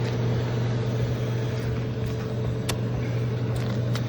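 Steady drone of an electric motor running, a strong low hum with a fainter higher tone over it, and a few faint ticks near the middle and end.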